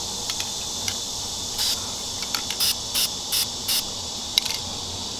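Aerosol spray-paint can let off in a series of short hisses, about six quick spritzes, over a steady chorus of insects.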